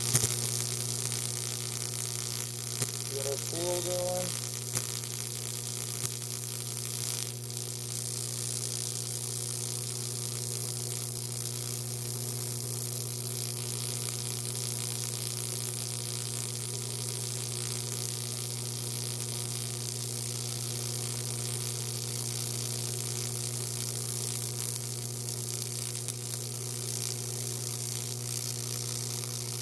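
AC TIG welding arc on aluminium, a steady electrical buzzing hum with an even hiss over it as the weld is laid.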